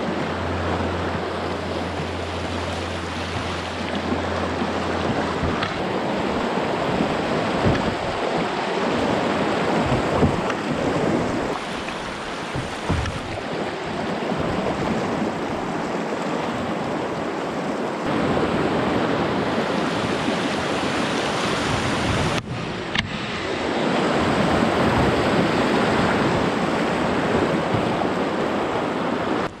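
Shallow river rapids rushing steadily over rocks, with wind buffeting the microphone. The rush steps up and down in loudness several times.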